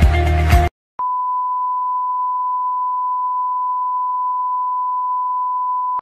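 Electronic outro music stops abruptly. After a moment's silence, the steady single-pitch test-tone beep that goes with colour bars sounds for about five seconds and then cuts off suddenly.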